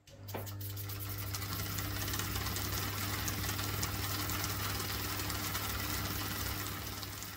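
Small homemade oscillating-cylinder engine with a brass cylinder and counterweighted crank starting up and running fast: a rapid stream of hissing exhaust puffs and light mechanical clatter that builds over about the first second, then runs steadily.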